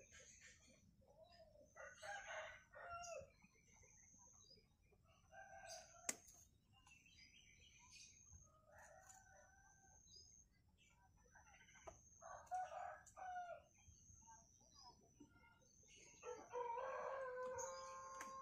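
A rooster crowing faintly several times, the longest crow held near the end, with a thin high chirping repeating over it. A single sharp snip of pruning scissors comes about six seconds in.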